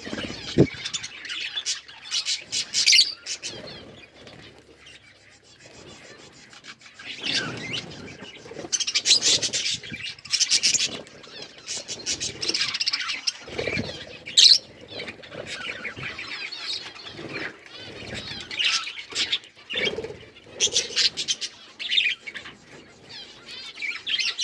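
Budgerigars chirping and warbling in quick, chattering bursts, with a quieter lull early on, and a few low dull rustles or thumps among the calls.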